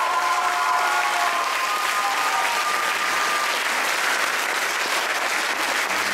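Theatre audience applauding as a dance number ends, with the last held notes of the music dying away in the first few seconds.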